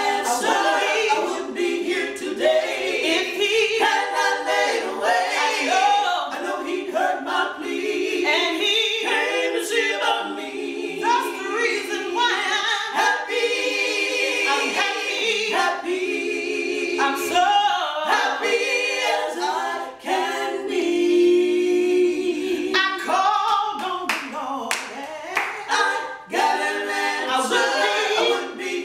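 A quartet of women's voices singing a gospel song a cappella, together with no instruments.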